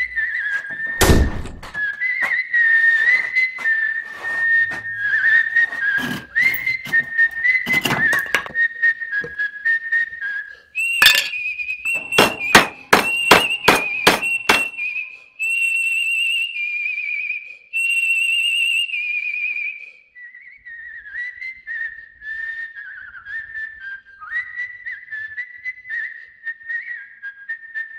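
A tune whistled throughout, broken early on by a few knocks and a little before halfway by a quick run of about eight hammer blows on wood. After the hammering the whistling holds a few long, higher notes.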